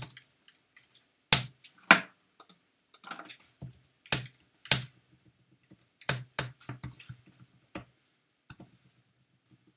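Keystrokes on a computer keyboard, typed in short irregular runs with pauses, stopping about eight seconds in.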